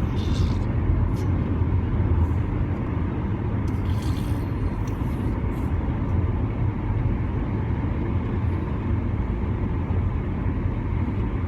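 Steady low rumble of road and engine noise inside a moving car, with a few faint short sounds near the start and again about four to five seconds in.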